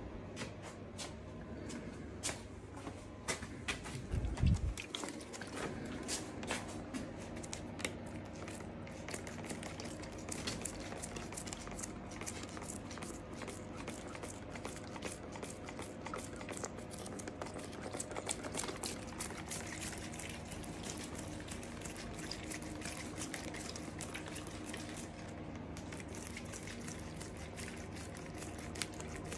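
Plastic hand spray bottle pumped over and over, each trigger pull a short spritz of liquid onto a wet epoxy resin pour, over a steady low hum. A dull thump about four seconds in.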